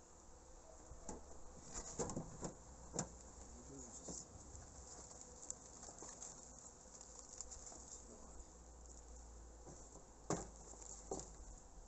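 Honeybees buzzing faintly around the hive. Light knocks about two to three seconds in as the metal-clad hive roof is set down, and two more near the end as a reed mat is laid over it.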